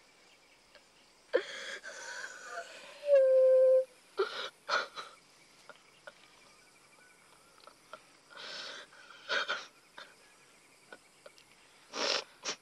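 A boy sobbing hard: a short cry, then a long wailing cry about three seconds in, followed by gasping breaths every few seconds.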